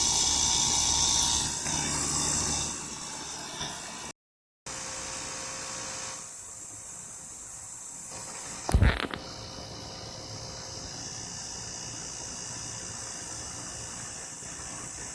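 Steady machine noise with a hiss and a low hum, loud for the first couple of seconds and then quieter, broken by a short cut to silence; a single sharp knock about nine seconds in.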